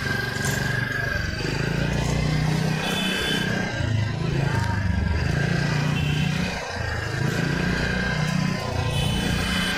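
Small motor scooter running as it is ridden, a steady low rumble with rushing road noise, and a brief high-pitched tone about three seconds in.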